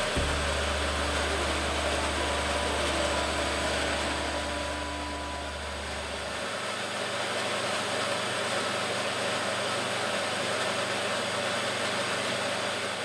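Steady rushing noise of a kitchen extractor hood fan running over a gas hob, with a low hum that drops out about six seconds in.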